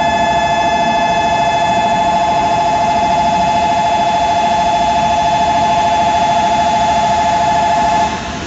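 Shinkansen platform train-approach warning bell ringing continuously as a train arrives: a loud, steady electric ringing on two close tones that cuts off suddenly near the end.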